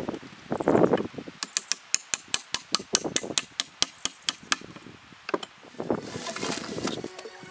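A hand hammer striking a log wall in a quick run of about sixteen sharp taps, roughly five a second, for about three seconds.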